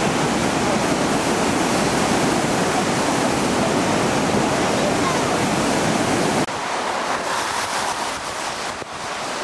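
Río Saja in flood: fast, muddy floodwater rushing and churning in a loud, steady wash of water noise. About six seconds in it cuts suddenly to a quieter, more uneven rush of the swollen river.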